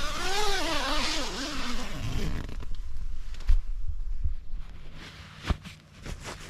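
Fjällräven tent's door zip being pulled open, a long rasping run whose pitch wavers up and down, followed by a few short knocks and thumps of handling.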